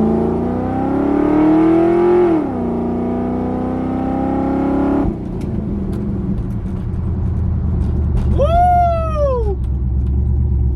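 Pontiac Firebird Trans Am's LS1 V8 accelerating hard, its pitch climbing for about two seconds, dropping at a gear change, then holding; about five seconds in the throttle is lifted abruptly and the engine falls to a low rumble as the car slows. A man shouts "Woo!" near the end.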